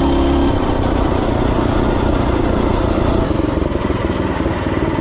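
Tillotson 212E single-cylinder engine on a Mega Moto 212 minibike, running at a steady speed, then dropping to a lower, uneven run about half a second in as the bike slows to a crawl.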